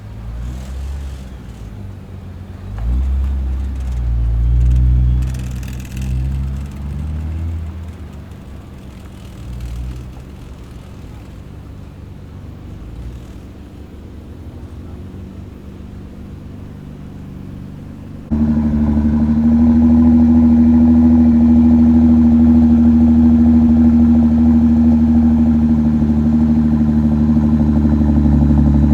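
Nissan GT-R engines running and revving as the cars pull away, rising and falling in surges. About eighteen seconds in, a much louder engine drone cuts in abruptly and holds steady at one pitch.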